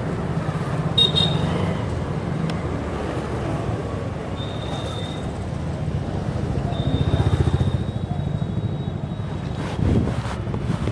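Street traffic noise: a steady rumble of passing motorcycles and cars, with a few short high-pitched tones and a knock near the end.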